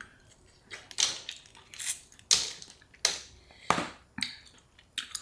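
Seafood shells, crab legs or crawfish, being cracked and broken open by hand: about seven sharp, irregular cracks and crunches.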